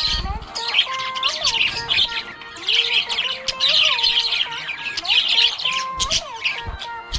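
Budgerigar chirping and chattering: a busy run of quick, high chirps and warbles, with a few squawks.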